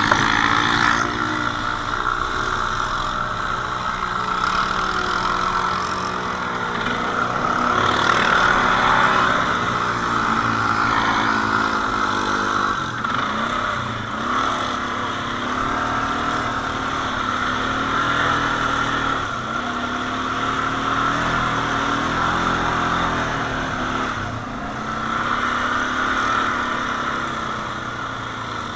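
Quad bike (ATV) engine running, its revs rising and falling again and again as it is throttled on and off.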